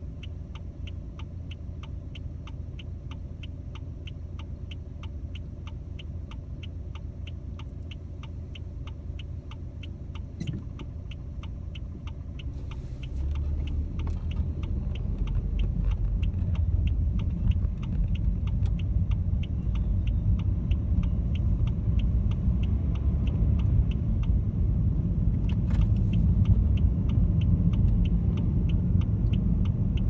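A car's turn signal ticking steadily in the cabin over the low hum of the idling car. About halfway through, the car pulls away and engine and road noise grow louder as it drives on.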